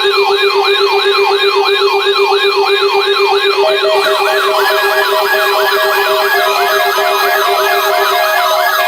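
Electronic siren sounds, layered: quick falling sweeps repeating two to three times a second over a steady low tone. A second siren joins about three and a half seconds in, and the low tone drops out about eight seconds in.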